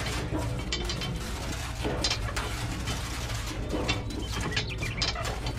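Small plastic toy trolley being handled, with light scattered clicks and rattles as its hinged tailgate is lowered and the parts are worked by hand.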